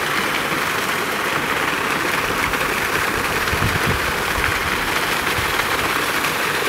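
Wind on the microphone: a steady rushing hiss, with irregular low buffeting gusts from about two seconds in.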